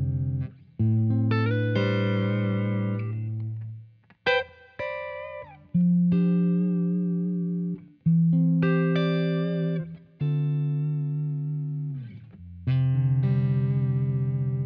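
Stratocaster-style electric guitar played through a J. Rockett Revolver stereo vibe/boost pedal. Chords are struck every second or two and left to ring out, mixed with a few single notes, one of which slides down in pitch.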